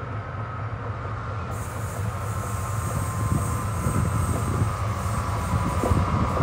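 Freightliner Class 70 diesel locomotive approaching, its engine note growing steadily louder as it nears, with a steady high whine over the low engine sound.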